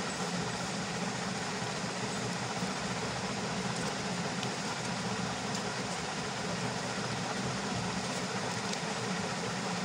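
Steady background hum and hiss of running machinery, like a fan, holding at one even level with no change.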